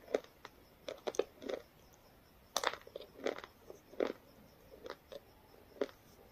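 A person's mouth eating: irregular short chewing, crunching and lip-smacking sounds, some in quick clusters, with short pauses between.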